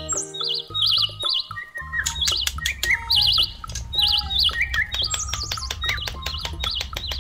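Background music: an instrumental track with repeated warbling, bird-like chirping trills over sustained notes, and a steady beat that comes in about two seconds in.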